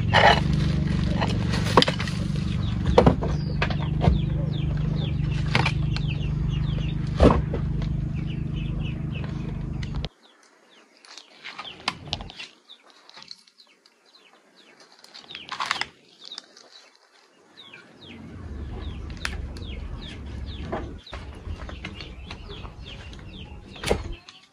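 Rustling of plastic and nylon netting with sharp knocks and scrapes of handled bricks, over a steady low hum that stops suddenly partway through. Quieter rustling follows, with birds chirping faintly.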